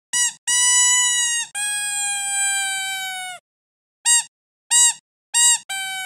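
Rubber squeaky dog toy squeezed by hand: a short squeak, then two long drawn-out squeaks, the second lower and slowly falling, then a few short squeaks.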